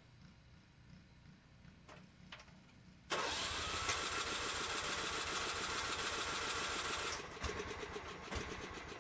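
Starter motor cranking a riding mower's Kohler engine. The sound starts suddenly about three seconds in, with a short rising whine as the starter spins up, and runs steadily for about four seconds without the engine catching: the ignition coil is not firing because its quick-disconnect plug has come apart.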